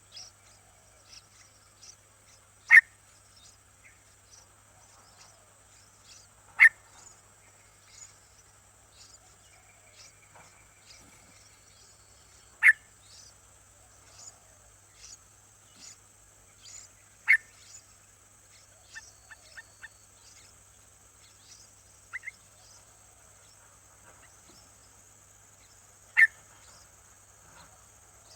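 A bird giving short, sharp single calls, five loud ones spaced several seconds apart with a few fainter ones between, over a steady high-pitched insect chorus.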